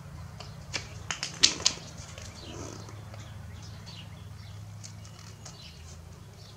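Tin snips cutting through a trim strip: a quick run of sharp snips and clicks about a second in, the loudest near a second and a half, then fainter ticks of the blades. A low steady hum runs underneath.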